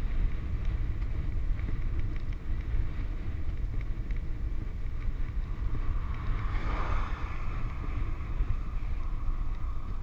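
Wind buffeting the microphone of a handlebar-mounted camera on a bicycle coasting fast downhill: a steady, heavy rumble with a lighter rush of road noise above it. A brief swell of brighter noise comes about seven seconds in.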